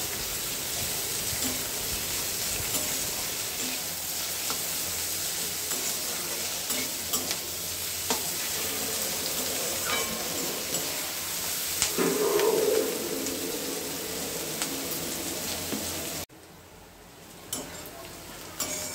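Sliced onions sizzling in hot oil in a metal kadhai, stirred with a flat metal spatula that clicks and scrapes against the pan. The sizzle drops away suddenly near the end, leaving a few quieter clicks.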